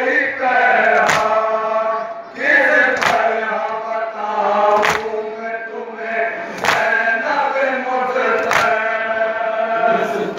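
Men chanting a nauha, a Shia lament, together, with a sharp collective chest-beat (matam) landing about every two seconds in time with the chant.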